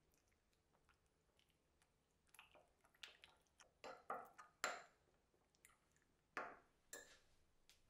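Metal spoon stirring thick soybean-paste seasoning sauce in a small ceramic bowl, clinking and scraping against the bowl in short irregular strokes that start about two seconds in.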